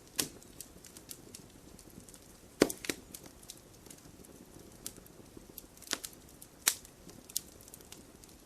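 Wood burning in a campfire: scattered sharp pops and cracks at irregular intervals, the loudest about two and a half seconds in, over a faint steady hiss.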